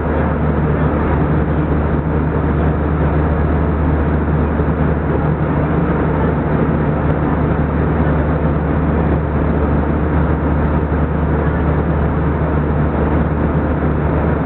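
Steady cabin noise of a jet airliner in flight: a constant low drone of engines and airflow, unchanging throughout.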